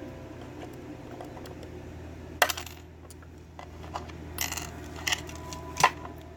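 Small metal pieces clinking on a hard surface: a handful of sharp clicks with short metallic ringing, the loudest near the end.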